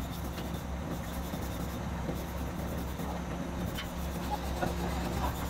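Steady low machine hum, with a few faint taps and clicks as a metal radiator tank is handled at the bench.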